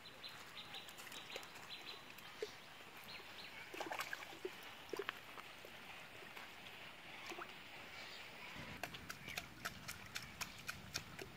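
Faint sloshing and scattered small splashes and clicks of a person wading into a shallow canal, with a quicker run of splashes and clicks in the last few seconds.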